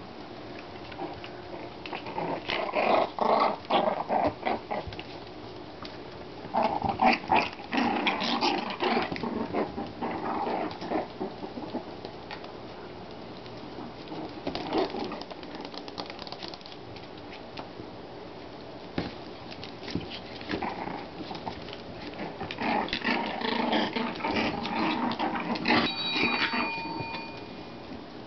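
33-day-old Shichon puppies play-fighting, giving small growls and yaps in several bursts.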